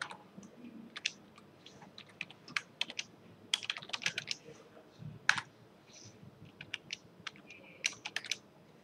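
Typing on a computer keyboard: irregular keystrokes, some single and some in quick runs, with the densest run about halfway through.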